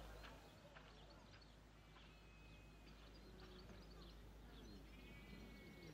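Near silence: faint outdoor ambience with scattered distant bird chirps and short whistles.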